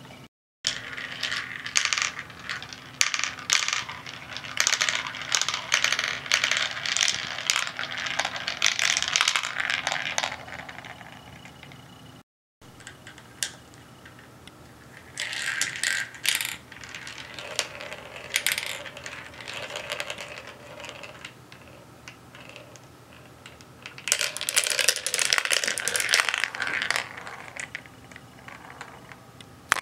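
Marbles clattering and rolling down a plastic marble run, a rapid rattle of clicks in three long bursts with quieter gaps between.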